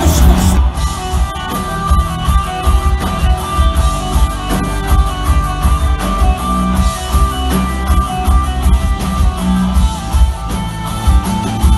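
Live pop-rock band playing an instrumental passage without vocals: electric guitar over a strong, pulsing bass and a steady drum beat, heard loud through the hall's PA.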